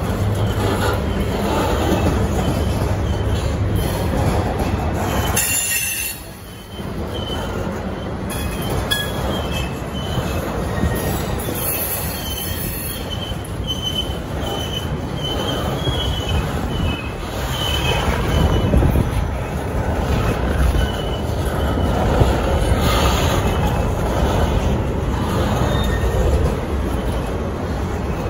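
Freight train of flatcars loaded with garbage containers rolling past, wheels and cars rumbling steadily. Thin, high-pitched wheel squeal comes and goes through the middle.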